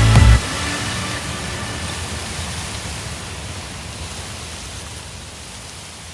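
The electronic soundtrack cuts off a moment in, leaving a steady wash of hiss-like noise that fades out slowly as the track ends.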